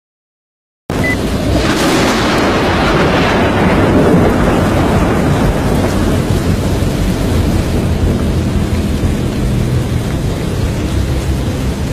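Thunderstorm: a sharp thunderclap about two seconds in, fading into a steady low rumble with rain.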